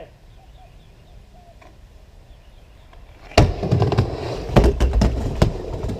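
Skateboard dropping in on a backyard half pipe: after a quiet start, a loud slap about three seconds in as the wheels land on the ramp, then the wheels rolling on the Gator Skins ramp surface with several sharp clacks.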